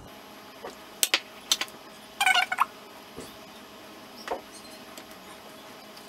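Soft kitchen handling: a few sharp clicks and taps of a silicone spatula as dollops of whipped cream are knocked off onto a sponge cake layer. About two seconds in there is a short, buzzy squeak.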